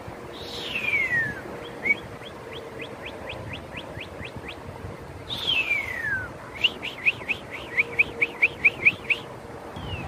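Two northern cardinal song phrases, each a long downward-sliding whistle followed by a run of short rising notes. The first is a man whistling an imitation of the cardinal's song. The second, louder one, a few seconds later, is a northern cardinal singing in reply.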